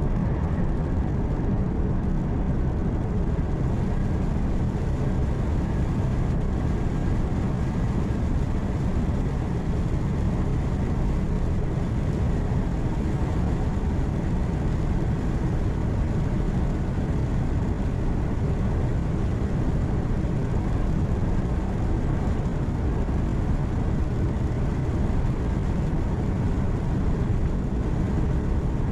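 Heavy truck's diesel engine running at a steady cruise with tyre and road noise, heard from inside the cab. Low, even hum with no changes.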